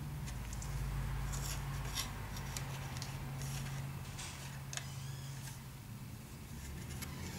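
Plastic model-kit wall pieces and a card base being handled and turned in the hands: scattered small clicks and rubbing, over a steady low hum.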